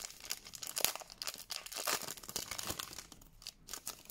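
Foil Pokémon TCG booster pack wrapper crinkling and tearing as it is opened by hand and the cards are pulled out: a quick, irregular run of crackles that thins out near the end.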